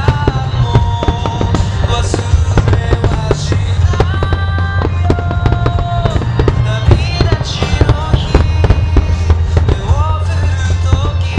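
Many aerial firework shells bursting and crackling in rapid, overlapping succession, over loud music with a steady heavy bass.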